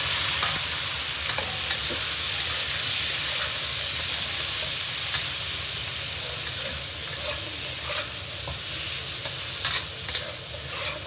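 Garlic scapes and pork belly sizzling in hot oil in a wok, just added and being stir-fried. A metal spatula turns them, scraping the pan now and then. The sizzle eases a little toward the end.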